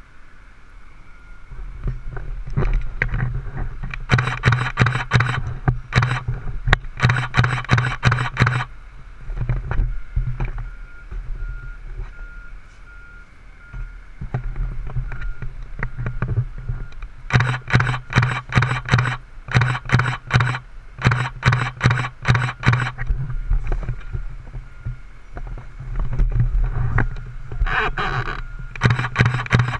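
Fire engine backing up: its diesel engine runs steadily and revs in loud clattering stretches of a second or two, several times over, while its reversing alarm beeps about once a second for much of the time.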